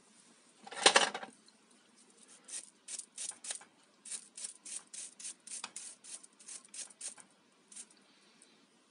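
A small stiff brush scrubbing a hand-blender motor's armature in quick short strokes, about four a second, with a louder rustling knock about a second in.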